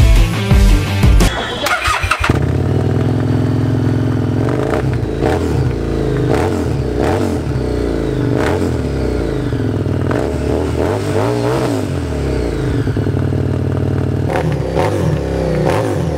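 Superbike engine running through its exhaust, steady with short sharp blips at fairly even intervals from about two seconds in.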